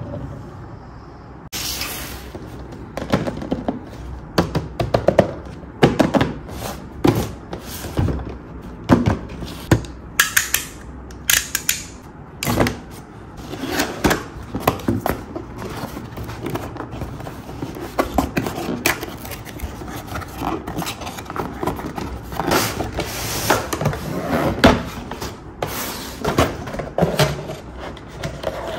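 Hands opening and handling a cardboard toy box and its cardboard insert: a busy, irregular run of clicks, taps and thunks of cardboard flaps and packaging being worked.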